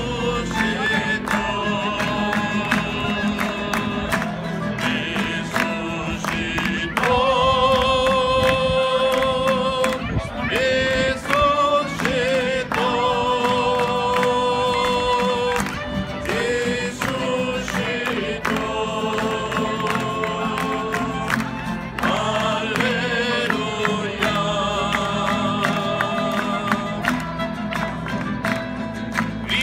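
Acoustic guitars strummed in a steady rhythm under several voices singing a Christian worship song in Italian, with long held notes.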